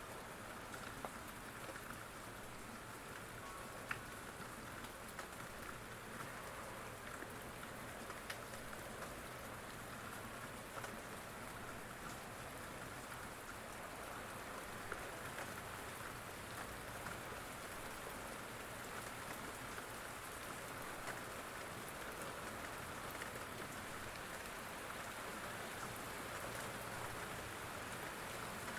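Steady rain falling on a surface, an even hiss with occasional single drops ticking louder.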